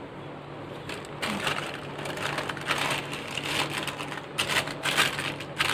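Butter paper crinkling and rustling as hands press it into a greased metal karahi. The crackle starts about a second in and grows louder and busier from about four seconds in.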